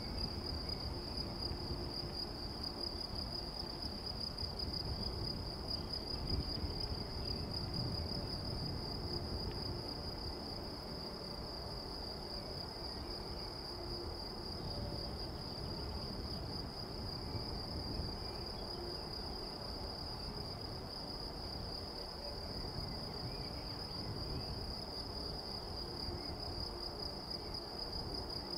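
Crickets chirring steadily in one unbroken high-pitched drone, over the low, distant rumble of a Boeing 747-400F freighter's jet engines as it taxis.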